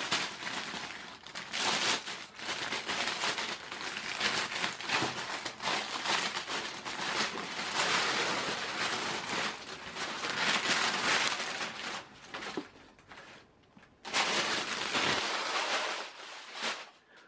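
Thin plastic wrapping bag crinkling and rustling as it is worked off a new backpack by hand. The rustling dies down about twelve seconds in, then comes back in one last short burst.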